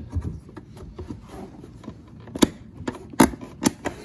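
Replacement Ford F-150 side-mirror glass being pressed onto its mount: light scraping and handling, then its plastic clips snapping into place with four sharp clicks in the second half.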